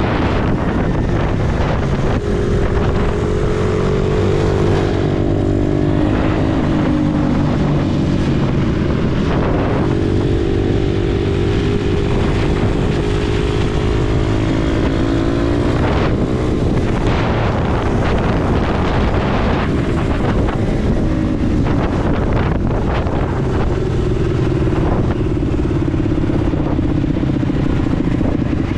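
Pitbike's single-cylinder engine revving hard through the gears, its pitch climbing and dropping again and again with the throttle and gear changes. Wind buffets the onboard microphone.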